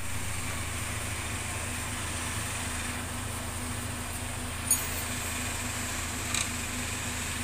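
Steady mechanical hum with a constant high whine above it, broken by one sharp click a little past halfway and a fainter tick about a second later.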